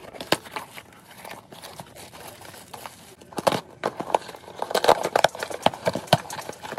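Cardboard shipping boxes being torn open by hand: tape and cardboard ripping, with irregular knocks and scrapes against the desk, busiest about halfway through.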